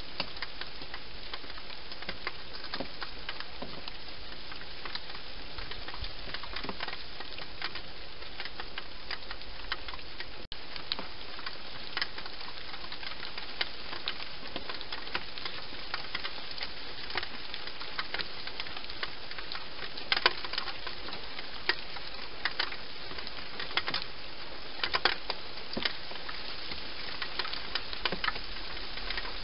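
Steady hiss with scattered light ticks and clicks, which come more often in the last third.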